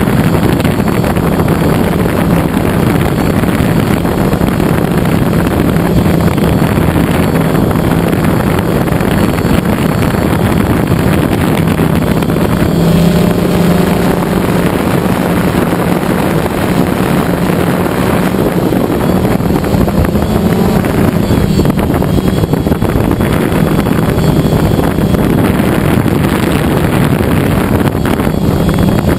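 DJI Phantom quadcopter's electric motors and propellers buzzing steadily in flight, heard from the camera mounted on the drone, with wind rushing over the microphone.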